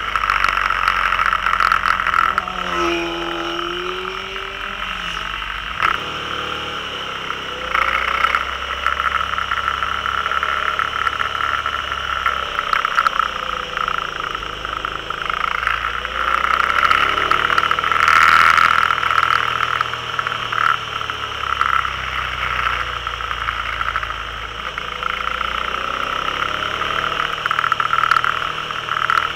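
Can-Am Spyder's engine running under way with heavy wind and road noise on the mounted camera, the engine note dropping and climbing a few times as it slows into and pulls out of curves.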